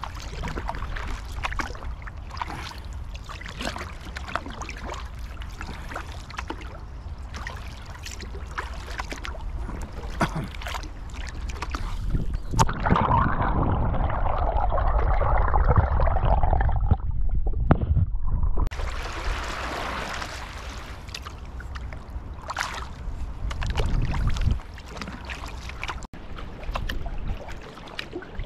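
Kayak paddle strokes splashing and water washing against the bow, in a run of short sharp splashes. For about six seconds in the middle the sound turns muffled and gurgling as the bow-mounted camera goes under the water, then the open splashing comes back.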